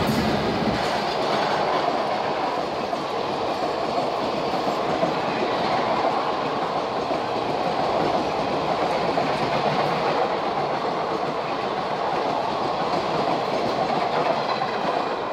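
Passenger train coaches running past at speed, with a steady, even noise of wheels on the rails throughout.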